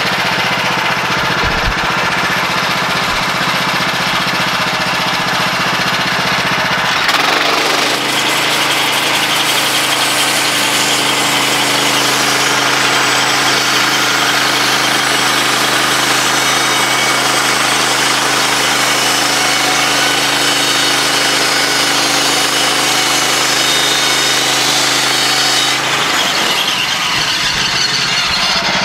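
Woodland Mills HM126 bandsaw mill's gas engine running; about a quarter of the way in it steps up to a new steady pitch and the blade's hiss through the wood fills in, dropping back shortly before the end as the cut finishes.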